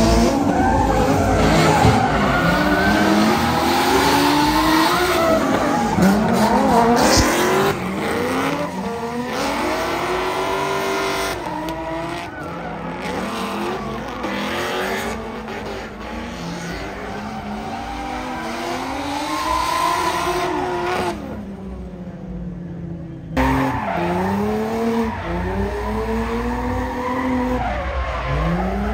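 Drift cars' engines revving up and down hard through slides, with tyres skidding and squealing. The sound breaks off abruptly a few times.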